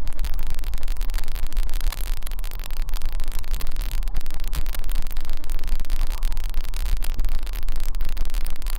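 Wind on the microphone: a loud, steady hiss with a deep rumble and constant crackle underneath.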